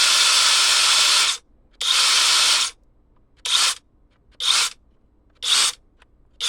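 Cordless brushless impact wrench spinning free with no load, whirring steadily, then stopping about a second and a half in. It runs again for under a second, then gives short trigger blips about once a second.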